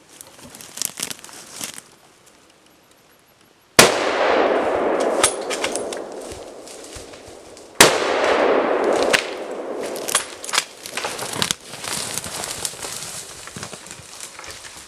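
Two rifle shots about four seconds apart, fired at a moose, each followed by a long rolling echo that dies away over a few seconds. After them come scattered sharp clicks and the rustle of dry brush and grass as the shooter pushes forward.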